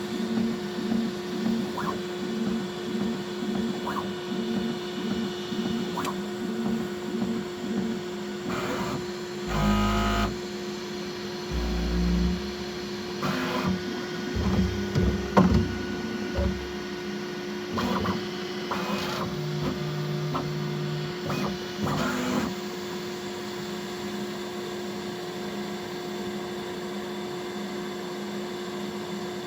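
Bambu Lab X1C 3D printer running its automatic bed-levelling routine over a steady machine hum. At first it pulses about twice a second. Then its stepper motors whir through a series of short moves, each at its own pitch, and after about 22 seconds only the steady hum is left.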